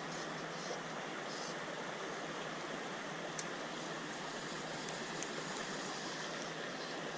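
Stream water rushing steadily, with a single faint click about three and a half seconds in.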